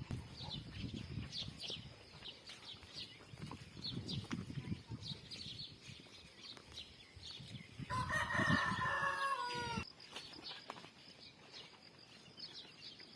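A rooster crowing once, a drawn-out call of about two seconds with a falling end, the loudest sound here, over many short high chirps.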